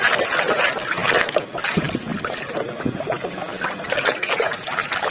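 Water splashing and dripping as a muddy toy is rubbed and rinsed by hand in a basin of clean water, in many small irregular splashes.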